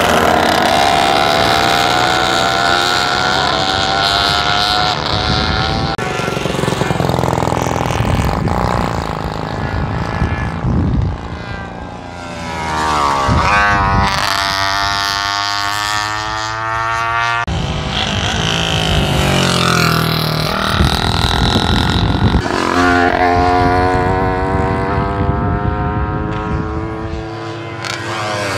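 Vintage racing motorcycles passing one after another on a race track in practice. Their engine notes climb again and again as the riders accelerate through the gears.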